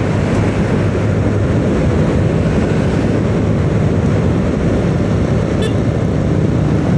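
Steady rushing din of engine, tyre and wind noise from a vehicle on the move while it overtakes trucks on the road.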